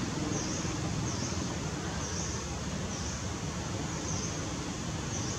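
Steady outdoor background noise with a low rumble, and a faint high chirp repeating about once a second.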